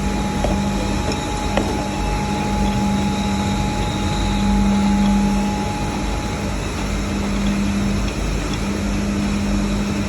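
Steady hum of running industrial machinery with a constant low drone; a higher whine in it stops about six and a half seconds in, and there is one faint click near the start.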